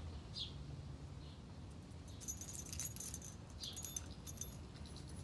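Metal dog tags jingling on a collar as a dog moves and plays, a run of jingles from about two seconds in until about four and a half seconds.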